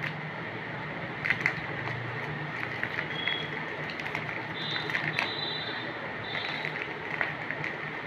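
Plastic biscuit wrappers crinkling and clicking as they are handled and pecked at by a young green parakeet, with a few brief high squeaks around the middle, over a steady background noise.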